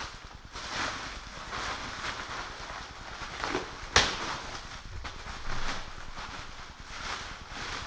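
Clear plastic bag crinkling and rustling as it is pulled off a loudspeaker cabinet, in a series of swishes, with one sharp knock about four seconds in.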